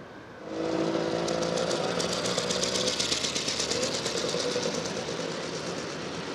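The engine of a 1910 Humber veteran motorcycle running as it rides past, a fast, even beat over a steady hum, growing a little fainter over the last couple of seconds.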